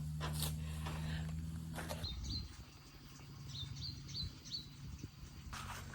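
A small bird chirping, a run of about eight short, high, upward-flicking notes, over quiet rural background. For the first two seconds a steady low hum with some rustling is heard instead, cut off abruptly before the chirps begin.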